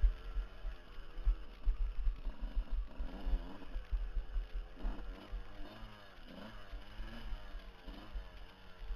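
Dirt bike engine revving up and down again and again while riding a rocky trail, heard from a helmet camera, with heavy irregular low thumping of wind and bumps on the microphone.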